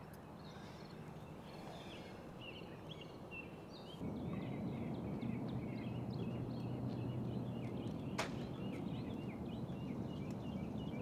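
Open-air ambience with many small birds chirping. About four seconds in, a louder low rumble of background noise sets in, and a single sharp click comes about eight seconds in.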